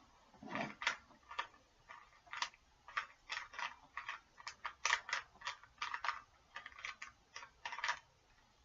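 A Rubik's Cube's plastic layers being twisted quickly, a run of irregular clicking clacks, several a second, that stops shortly before the end.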